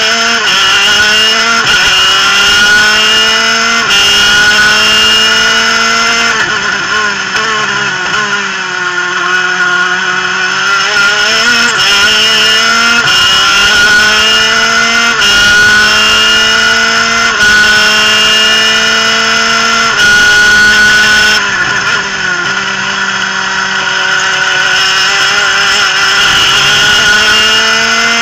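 Two-stroke superkart engine at high revs, heard onboard. Its pitch climbs steadily and steps down sharply at each upshift, again and again, with one longer dip and climb back partway through as it slows for a corner.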